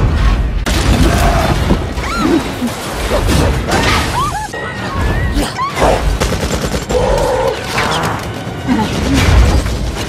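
Action-film sound mix: repeated heavy booms and crashes and volleys of gunfire, with voices crying out, over a music score.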